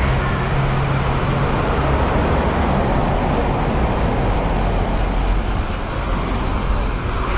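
Steady road and traffic noise heard from a bicycle on a road passing through an underpass and out into the open, with a low hum during the first couple of seconds.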